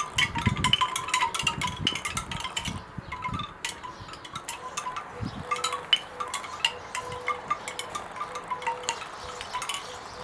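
Bamboo wind chime swinging, its hollow tubes knocking together: a dense clatter of wooden knocks for the first few seconds, then sparser, irregular clacks.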